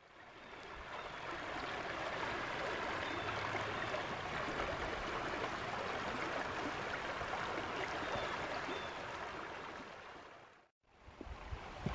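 Shallow river water rushing and babbling over rocks in a steady wash that fades in at the start and fades out about ten and a half seconds in. After a brief gap near the end comes a low rumble with a few sharp knocks.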